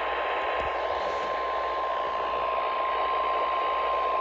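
Weather radio receiver sounding the steady single-pitch EAS/NOAA warning alert tone, about 1 kHz, through heavy static hiss. This tone leads into a severe thunderstorm warning.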